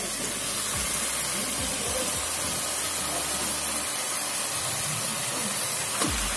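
Onion-tomato masala frying in a pan, a steady sizzling hiss, with a brief sharp sound just before the end as marinated chicken pieces drop in from a steel bowl. A low thumping beat runs underneath.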